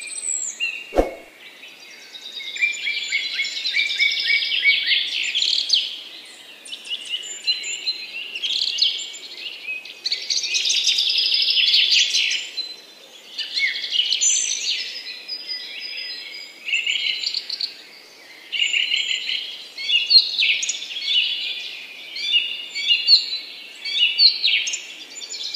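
Many small birds chirping at once in a dense, continuous chorus that swells and fades, with a single sharp click about a second in.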